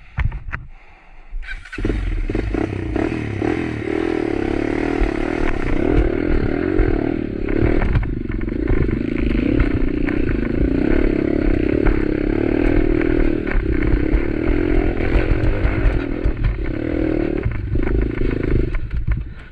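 Motorcycle engine running hard under load on a rough trail, with short knocks and rattles through it. It comes in suddenly about a second and a half in, dips briefly near the end and stops just before the end.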